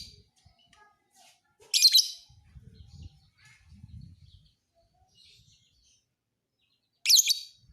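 Lovebird song: two short, loud, shrill chattering bursts, one about two seconds in and one near the end, with faint scattered chirps between them.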